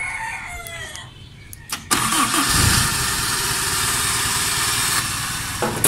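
Owner-type jeep engine cranked on its starter, catching suddenly about two seconds in and then running steadily. It is powered by the battery taken from the Lancer, a sign that the battery is good and the Lancer's starter is at fault.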